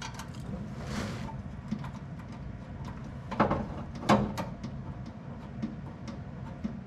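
Hand-handling noises of a rigid brake line being fitted by hand inside a tube-chassis race car: scattered small clicks and taps, a brief rustle about a second in, and two louder knocks a little past the middle as the tubing meets the chassis.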